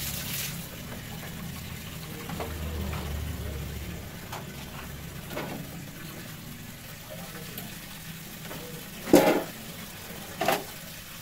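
Kitchen work sounds: a low steady hum with light scattered clinks and knocks, then two sharp knocks a little over a second apart near the end.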